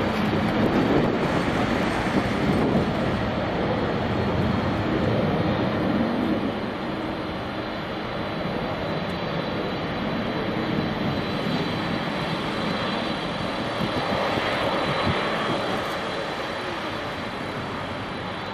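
Jet engines of a Boeing 767-300ER at takeoff thrust: a steady roar as the airliner rolls down the runway and lifts off, slowly fading as it climbs away.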